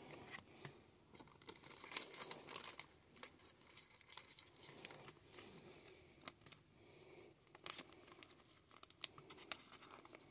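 Faint crinkling and rustling of a thin clear plastic card sleeve as a trading card is worked into it, with scattered small clicks from handling the card.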